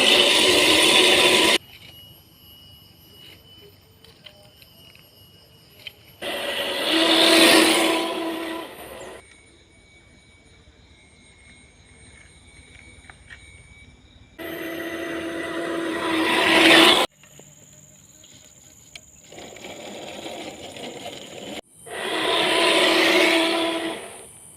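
Electric motor and gear drivetrain of an RGT EX86100 RC rock crawler whining in four short bursts of two to three seconds each, the pitch holding steady within each burst. Faint steady high tones are heard between the bursts.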